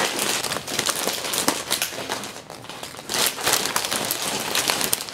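Wrapping paper crinkling and rustling in irregular crackles as it is folded and bunched around a present, easing off briefly about two and a half seconds in.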